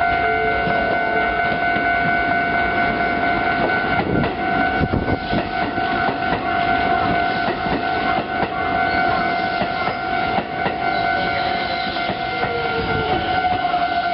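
Japanese railway level-crossing alarm ringing steadily while an electric commuter train passes. Its wheels clack over the rail joints, most strongly from about four seconds in until about eleven seconds.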